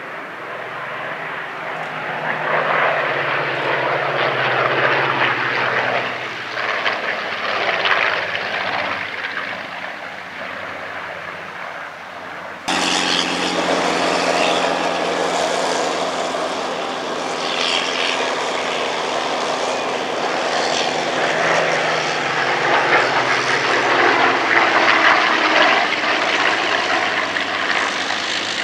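The piston engines of a Spitfire XIX (Rolls-Royce Griffon) and a Hurricane IIc (Rolls-Royce Merlin) flying as a pair overhead: a steady propeller drone that grows louder over the first few seconds. About 13 seconds in the sound jumps suddenly louder and brighter, then carries on.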